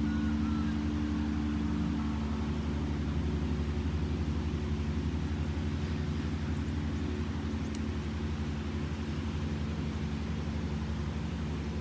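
A motor running steadily with an even low hum and pulse, and a few faint high chirps in the first couple of seconds.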